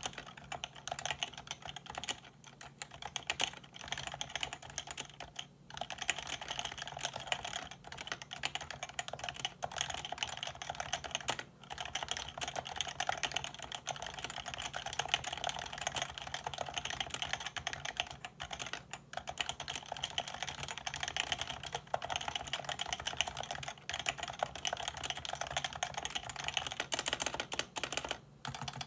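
Fast, continuous typing on a Happy Hacking Keyboard Professional 2 with its Topre electrostatic capacitive switches not yet lubricated: a dense run of keystrokes broken by brief pauses about 6 and 11 seconds in and near the end.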